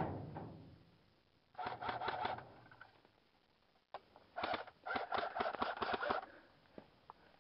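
M14-style airsoft rifle firing: one shot right at the start, then two bursts of rapid shots, each a quick run of mechanical clacks. The first burst lasts about a second and the second nearly two.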